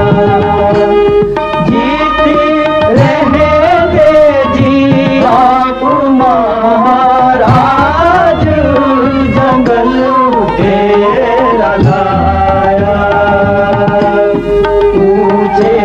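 Himachali folk bhajan music: a hand-drum rhythm under a melody of steady held notes near the start and end and gliding, wavering notes in the middle.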